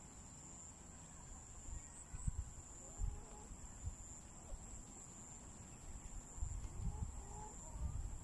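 Chickens giving soft, scattered clucks. Irregular low thumps come through underneath, and a steady high-pitched whine runs in the background.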